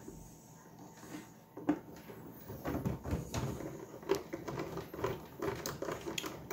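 Small hex driver turning button-head cap screws into the rear light bar mount on an RC truck's plastic body: scattered light clicks, ticks and scraping of tool, screws and body.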